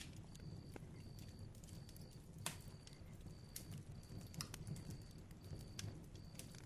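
Bonfire crackling: scattered sharp pops and snaps over the low rumble of the burning fire, with a faint high chirp repeating about every 0.7 seconds.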